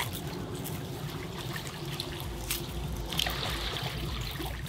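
Water trickling at the shoreline, with a few small clicks as a clump of mussels is pulled from among broken oyster shells.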